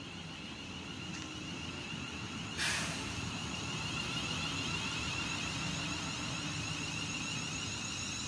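Class 350 Desiro electric multiple unit passing through at speed: a steady rumble of wheels on rail with a high, steady electric whine, growing louder as it goes by, and a short loud rush of noise about two and a half seconds in.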